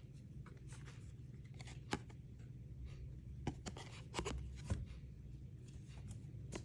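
Trading cards being handled and flipped through by hand: a few light, sharp card clicks and soft sliding rustles over a steady low hum.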